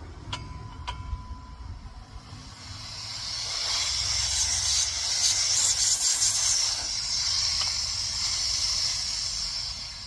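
Two light clicks, then nitrogen hissing as it flows through and out of a mini-split's refrigerant line set, swelling over a few seconds, holding steady and fading away near the end: the lines being purged of air with nitrogen before the pressure test.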